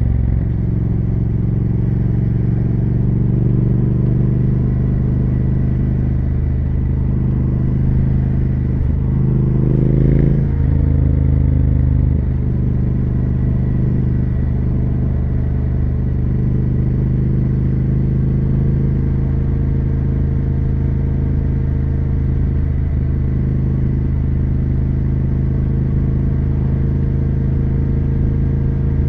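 Triumph Speed Twin 1200's parallel-twin engine and exhaust running at a steady pace. About ten seconds in, the engine note dips and rises again briefly, then settles back to steady.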